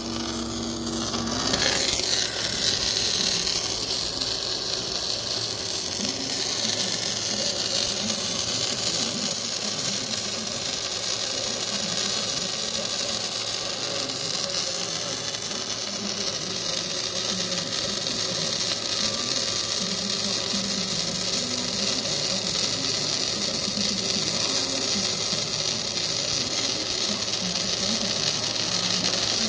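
Electric welding arc hissing steadily as a weld layer is run, starting about a second and a half in.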